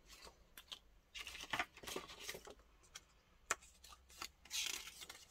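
Faint sounds of paper being handled on a cutting mat: sheets sliding and rustling in a few short spells, with light taps and clicks between them.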